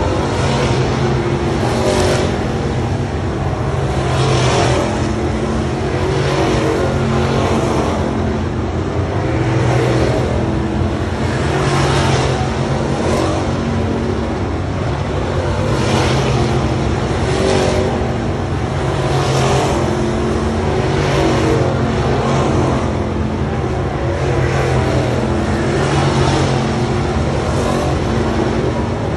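Several dirt late model race cars' V8 engines running hard around a dirt oval. The sound swells and falls every couple of seconds as the cars go past.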